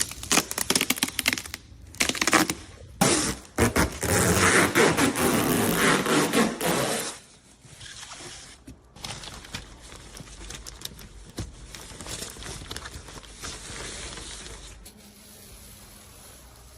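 Rustling and scraping handling noise with scattered clicks, loudest from about four to seven seconds in, then fainter.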